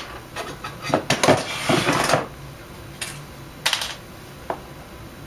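Small hand tool clicking and scraping against metal connector terminals as they are pried up: a rapid clatter of taps in the first two seconds, then a few single clicks.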